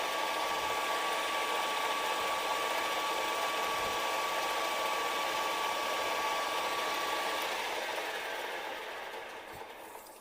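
Manual metal lathe running steadily with a high whine, then switched off and winding down, fading out over the last two seconds or so.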